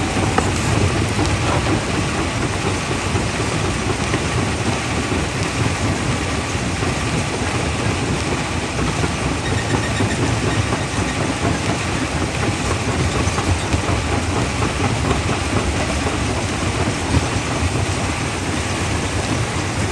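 Primary jaw crusher running and crushing rock: a loud, continuous clatter and grinding of stone with a machinery rumble under it.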